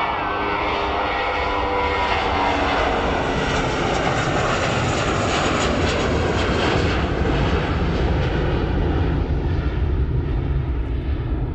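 Airbus A320-232's IAE V2500 turbofan engines at takeoff thrust. In the first few seconds, whining tones fall in pitch as the airliner passes, then give way to a deep, steady rumble as it climbs away.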